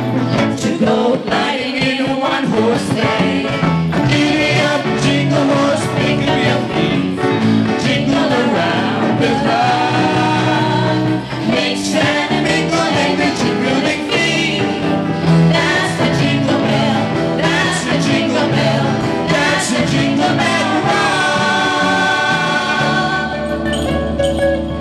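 Live pop-rock band playing a Christmas song, with several singers over electric bass, drum kit and keyboard. Near the end a long note is held, then the full band drops out about 23 seconds in, leaving lighter shaken hand percussion.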